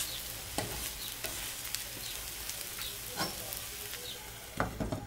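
A potato-and-egg Spanish tortilla sizzling in a frying pan while a wooden spatula scrapes and pats it back into shape, with scattered clicks. A few knocks near the end as a glass lid is brought over the pan.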